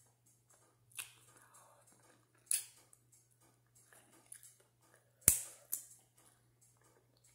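Snow crab legs being snapped and picked apart by hand: a few sharp cracks and clicks of shell, the loudest a sharp snap about five seconds in.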